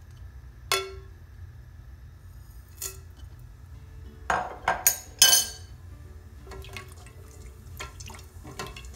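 Whole spices dropped into oil in a ceramic-coated pan: single sharp clinks as pieces land, a cluster of louder rattling drops a little past halfway, then light taps of a silicone spatula stirring them near the end.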